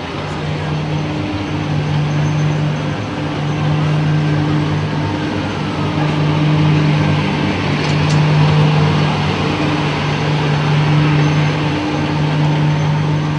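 Vehicle engine running steadily, a low droning hum with a brief dip about every second or so.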